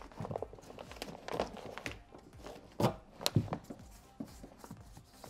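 Hard plastic door-access covers being pressed back into a truck's inner door panel by hand: scattered taps and clicks of plastic on sheet metal, with two sharper knocks about three seconds in.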